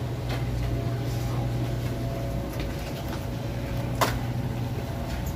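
Supermarket ambience by the refrigerated display cases: a steady low hum, with one sharp click about four seconds in.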